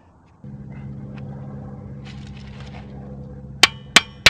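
A steady low mechanical hum that starts abruptly about half a second in, with two sharp clicks near the end.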